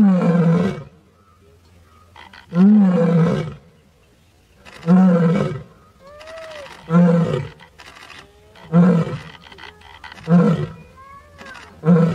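Asiatic lioness roaring: a bout of about seven deep roars, the first ones long, each one shorter and coming sooner after the last.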